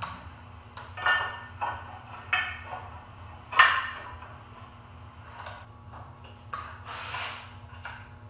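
Steel square tubing clanking and knocking against Stronghand Tools 3-axis corner vises as a frame is set into the jaws and clamped: a string of sharp metallic clanks and clinks, the loudest about three and a half seconds in.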